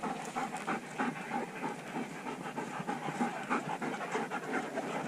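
Shepherd dogs panting, with many small irregular crackles and rustles.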